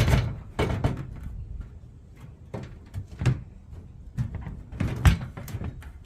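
Scattered hollow knocks and clunks of a light aluminum storage box being set down and shifted into place on a van's roof, with a hard knock at the start and another about five seconds in.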